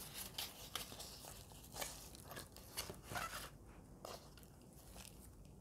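Thin plastic nursery pot crinkling as it is squeezed and a primula's root ball is pulled out, loose potting soil rustling and crumbling, in a string of short faint crackles and rustles.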